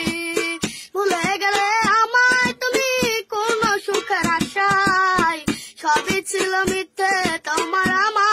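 A boy singing a Bengali song, his voice sliding between notes, while beating a quick, steady rhythm on a metal pot with his hand.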